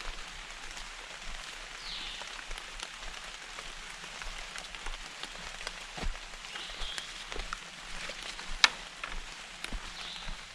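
Steady rain falling, with many small drop ticks and one sharper tap about eight and a half seconds in. A faint, short high chirp comes every few seconds.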